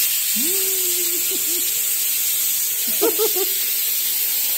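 A steady, loud hiss that starts abruptly, with faint voice-like sounds behind it a couple of times.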